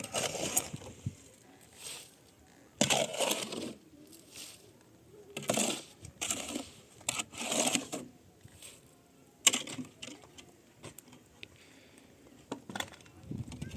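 Irregular scraping and clattering as objects are handled, in short bursts, with a sharp knock about nine and a half seconds in and another near the end.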